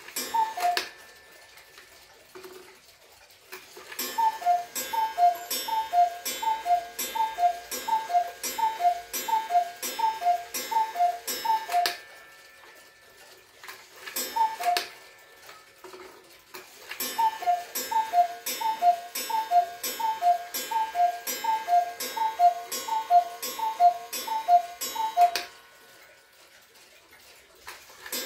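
Cuckoo clock's falling two-note cuckoo call, each call paired with a mechanical click. It sounds once near the start, then about a dozen times in a row, once more, another run of about a dozen, and once again at the end. The minute hand is being turned by hand, so the clock calls the half hours and the full hours as they pass.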